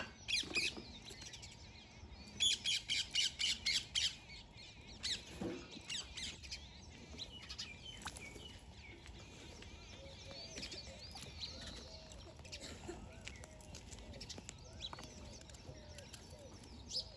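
Birds calling: a quick run of about seven sharp, repeated high calls a couple of seconds in, with scattered chirps before and after and softer twittering later.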